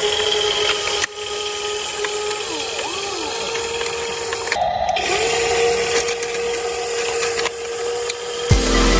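Electric motors of a WLtoys 16800 RC metal excavator whining steadily, with a few quick rising and falling pitch sweeps and a brief break about halfway. Loud electronic dance music with heavy bass cuts in near the end.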